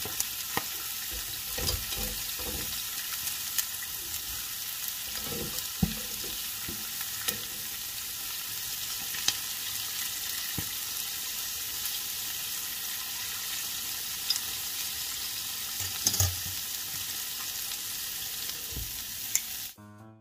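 Floured pig feet deep-frying in oil in a cast iron skillet: a steady sizzle, with scattered knocks and clicks as the pieces are turned with metal tongs. The sizzle cuts off suddenly near the end.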